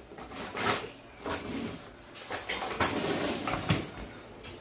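A few separate knocks and clatters, about five in all, of things being handled in a kitchen.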